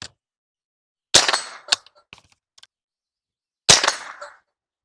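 Two shots from a .22LR AR-15 rifle, about two and a half seconds apart, each a sharp crack with a short tail. A fainter sharp crack follows about half a second after the first shot.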